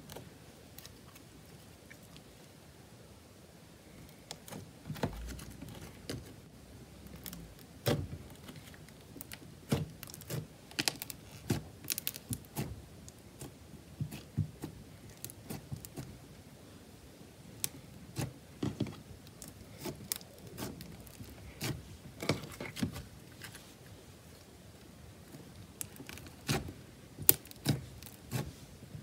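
Hands pressing and kneading white slime into soft purple modelling clay, giving irregular sticky clicks and crackling pops that come thick and fast from a few seconds in.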